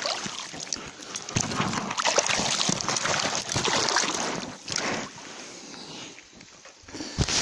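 A fishing net full of crucian carp being hauled into a boat: water sloshing and splashing, with rustling and small knocks from the handling. It is busy for about five seconds, then quieter, with one sharp knock near the end.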